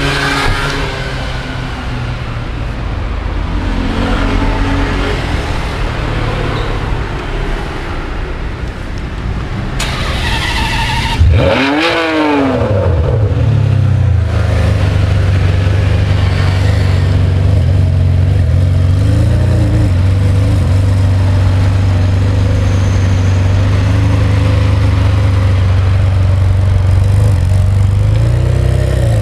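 Ferrari 599 GTB Fiorano HGTE's V12 with a Tubi exhaust, running just after start-up. It idles unevenly, then about eleven seconds in gets one sharp rev that rises and falls. After that it settles into a steady idle, with a couple of small throttle blips near the end.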